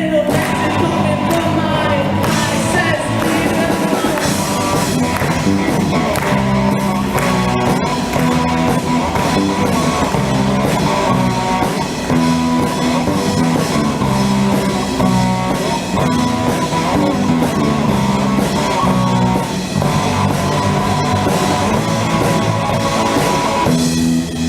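Small live rock band playing a song: electric guitar, bass guitar and drums, with a sung vocal.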